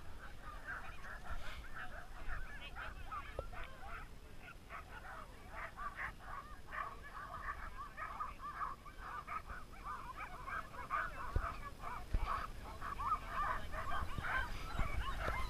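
A team of sled dogs in harness yelping and whining over one another, with many short, high calls overlapping throughout. Wind rumbles on the microphone, with a few stronger gusts in the second half.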